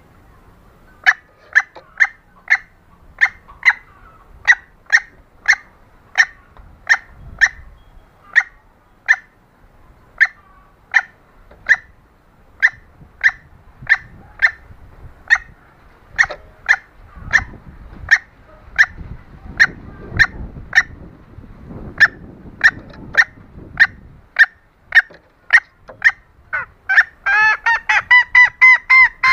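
Junglefowl hen clucking in short, sharp notes about two a second, a lure call for junglefowl. Near the end the clucks quicken into a louder run of drawn-out calls.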